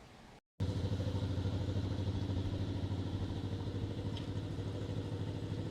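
Engine idling steadily with a quick, even chugging pulse, starting abruptly about half a second in.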